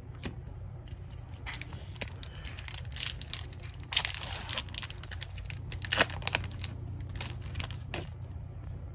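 A trading-card pack's foil wrapper being torn open and crinkled, in short irregular rustles and tears with a longer tearing stretch about four seconds in, and a sharp click at about six seconds.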